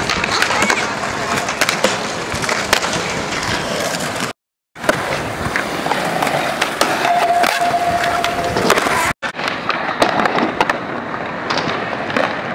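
Skateboard wheels rolling on a hard painted court surface, with sharp clacks of the board landing and hitting the ground. The sound cuts out abruptly twice, about four and nine seconds in.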